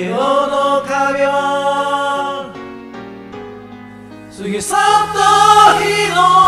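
Several voices singing in unison over a karaoke backing track, in long held notes that dip quieter midway and swell louder again about two-thirds of the way through.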